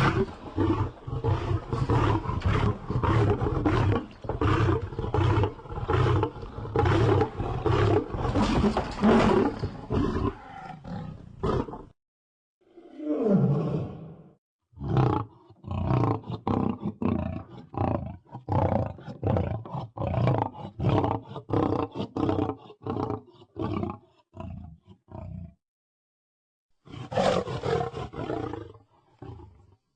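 Lion roar sound effect: runs of short, rapid roars, a few each second, broken by brief pauses, with one drawn-out gliding roar between the first two runs.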